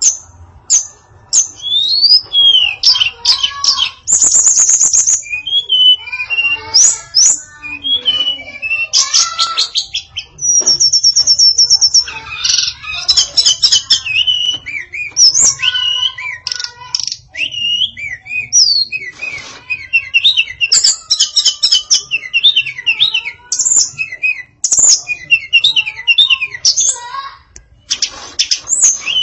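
A female tledekan songbird singing a fast, varied song of chirps, sweeping whistles and rattling trills, with two long buzzy trills, one about four seconds in and one around ten to twelve seconds.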